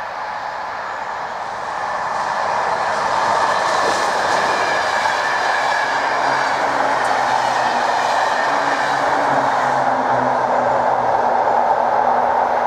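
NMBS electric passenger train passing over a level crossing: rail noise and wheel clatter swell about two seconds in and stay loud as the cars go by, with a low motor hum from about six seconds in. The crossing's warning bell rings steadily throughout.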